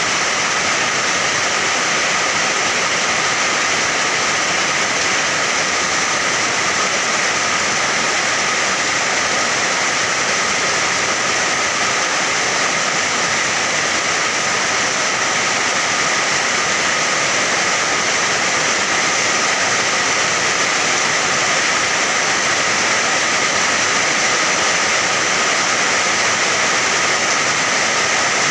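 Steady heavy rain: an even, unbroken hiss with no thunder or separate drops standing out.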